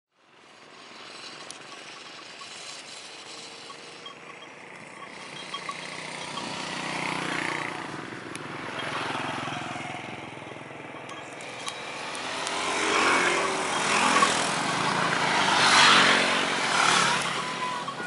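Small motorcycles running along a road and passing close. The sound swells several times in the second half as they go by.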